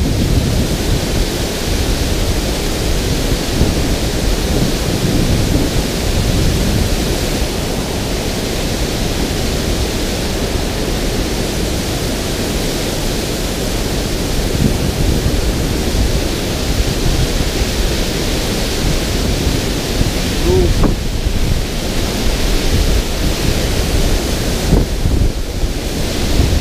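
Water pouring over a concrete dam spillway, a steady loud rush of falling water, with wind rumbling on the microphone.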